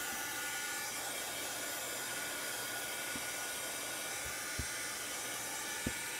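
Small handheld hot-air dryer blowing steadily, drying wet chalk paint on a fabric banner. A couple of light knocks come near the end.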